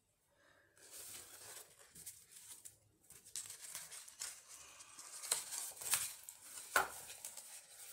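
Sheets of ribbed decorative paper being handled and slid across a wooden tabletop: irregular rustling and scraping, with a sharper tap near the end.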